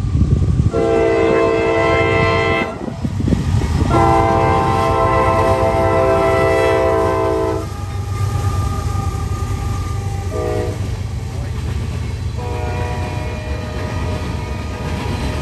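Freight train's diesel locomotive sounding its multi-tone air horn in the long, long, short, long grade-crossing signal, the last blast still sounding at the end, over the steady rumble of the train.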